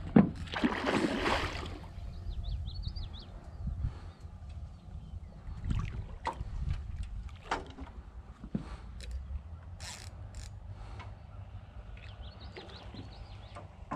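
Steady low wind rumble on the microphone over water, with a splash lasting over a second near the start and scattered knocks and clicks, as a hooked redfish is fought beside a small boat. Faint bird chirps come twice.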